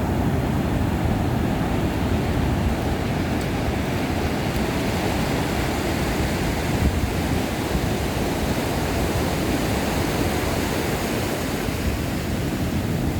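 Ocean surf washing steadily onto a sandy beach, heard as an even rush with a heavy low rumble and no separate breaks standing out.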